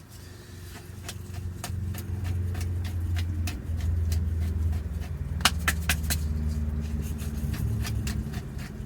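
A car engine running steadily with a low hum that grows louder over the first couple of seconds. A few sharp clicks come about halfway through.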